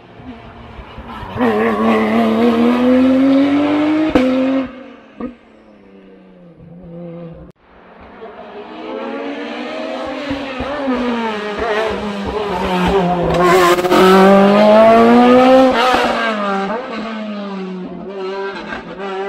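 Hillclimb race car engines accelerating through a hairpin. One car's engine rises in pitch for about three seconds and cuts off. After a short gap a second engine builds, rising and falling in pitch for about ten seconds, loudest near the end before it fades.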